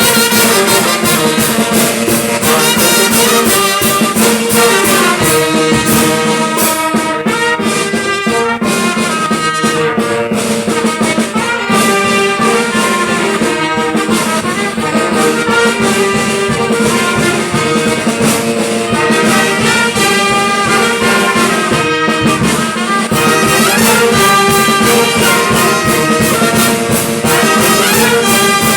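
Brass band playing: trumpets and trombones carry a tune in sustained, overlapping notes over a steady percussion beat.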